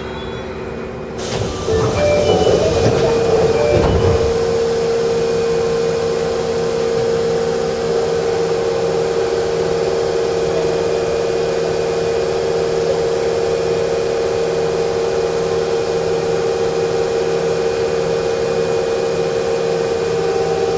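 Osaka Midosuji Line 21 series subway train at the end of its run: a burst of air hiss with a few knocks about a second or two in, then a steady hum with a hiss under it.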